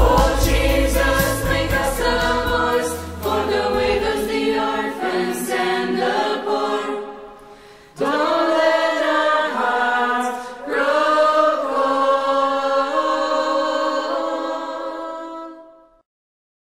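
The closing bars of a Christian song: voices singing in harmony over band backing. The backing drops away about five seconds in and the sound fades almost to nothing. Then unaccompanied voices sing a last sustained phrase, ending shortly before the close.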